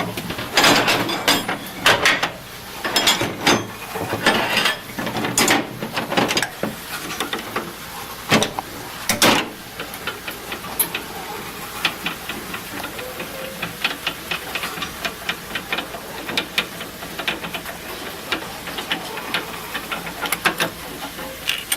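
Metal-on-metal handling of a furnace burner being taken apart with hand tools: loud scraping strokes and knocks for the first half, then a long run of quick, light clicks like a ratchet or threaded parts being turned.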